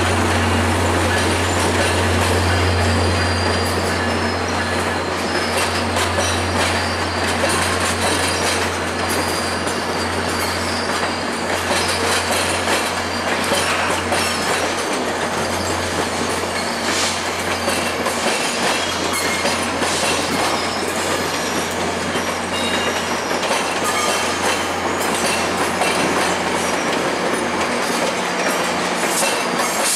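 Stainless-steel passenger cars of a long train rolling slowly past, steel wheels clicking over rail joints and switches with intermittent high-pitched flange squeal. A low steady hum is strong at first and fades after about fifteen seconds.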